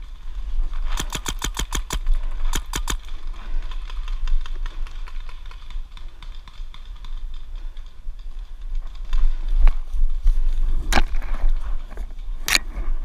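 Paintball marker firing two quick bursts of sharp pops a little after the start, about eight shots a second, then a few single shots near the end.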